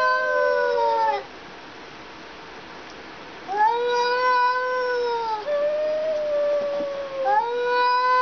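Two domestic cats yowling at each other in a hostile standoff: long, drawn-out moaning calls of a second or two each, traded back and forth with a short pause. A flatter, slightly higher call comes in between the others.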